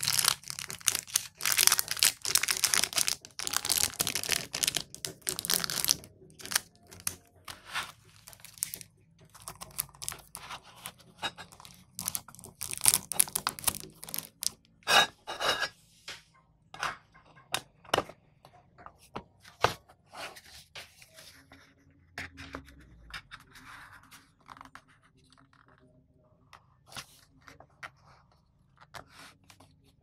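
Clear plastic wrapping peeled and crinkled off a chrome Zippo lighter, a dense crackling for the first six seconds. Then come scattered crinkles and small sharp clicks as the lighter's tin case and box are handled, thinning out toward the end.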